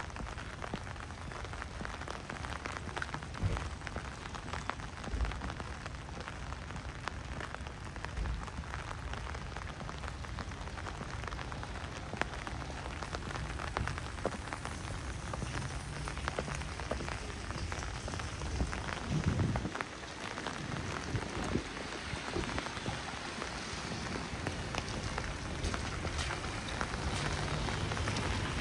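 Steady rain falling, with many small raindrop ticks over an even hiss.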